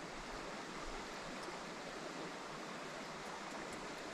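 Low, steady rush of a flowing creek.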